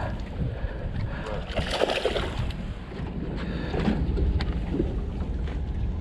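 Wind rumbling steadily on the microphone over water and boat noise, with a few light clicks about halfway through.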